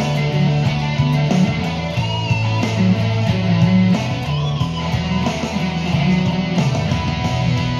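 Stratocaster-style electric guitar played through an amplifier, over a backing with a steady beat and a sustained low bass line.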